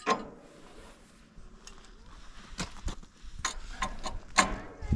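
Steel chain on a log arch clanking and clinking as it is handled and pulled around a log: about five separate sharp metallic knocks, the loudest right at the start and about four and a half seconds in, some ringing briefly.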